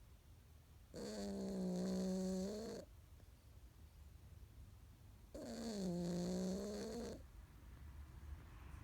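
Persian cat snoring in its sleep: two long pitched snores about four seconds apart, each lasting a little under two seconds, the second dipping in pitch in the middle.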